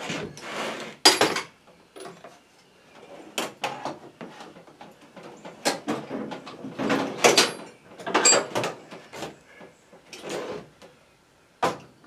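Irregular scraping, rubbing and clicking of small hand tools on a spark plug as its electrode gap is spread out and checked with a gauge, with a sharp click near the end.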